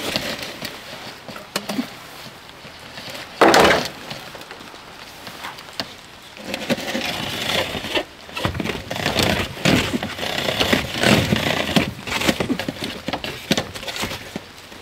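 Black corrugated plastic drainage pipe being handled and fed along by hand, its ridged walls scraping and crackling, in an irregular run that grows denser in the second half. One short, loud crash about three and a half seconds in.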